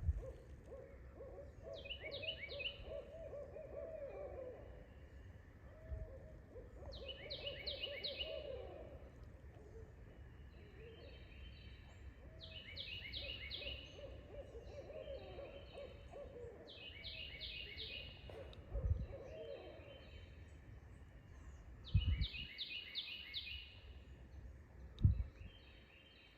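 Owls calling back and forth in a series of wavering, quavering hoots. A higher call of quick stepped notes repeats every few seconds behind them, and there are a few low thumps.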